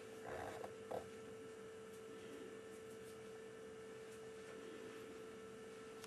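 Steady electrical hum at a single pitch, with two faint brief rustling noises about half a second and one second in.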